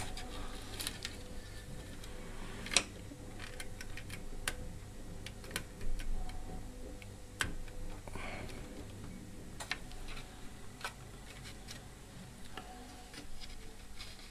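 Small plastic clicks, taps and rustles as flat ribbon cables are handled and pushed into their connectors inside an opened DVD player chassis, with a few sharper knocks.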